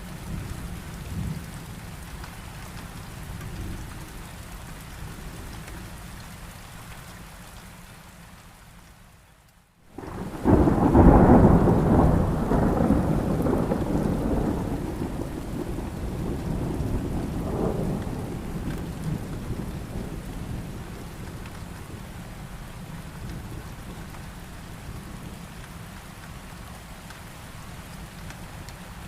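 Steady rain that fades almost to nothing about a third of the way in. Then a loud thunderclap breaks in suddenly and rumbles away over the following several seconds, swelling once more before it fades, with rain falling throughout.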